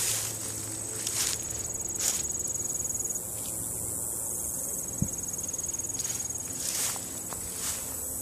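Footsteps crunching through dry fallen leaves: three steps about a second apart, a pause of several seconds, then two more near the end. Insects trill steadily in the background.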